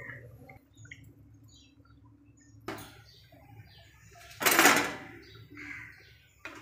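A metal spatula knocking and scraping against a cooking pan: a sharp click a little under three seconds in, then a louder clatter lasting about half a second.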